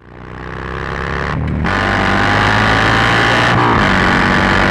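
2007 Buell XB9SX's air-cooled V-twin through a Penzl aftermarket exhaust with its flap open, accelerating hard, with two quick gear changes about one and a half and three and a half seconds in. Wind and road noise run under it, and the sound fades in from silence at the start.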